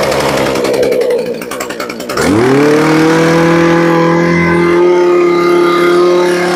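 Ryobi brush cutter's small petrol engine running roughly at low speed, then revved up about two seconds in and held at high speed with a steady high whine, easing off at the very end.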